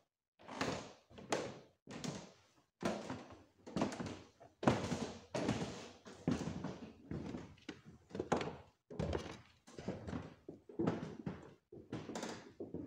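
Footsteps on old wooden floorboards: a steady run of dull thuds, about two a second.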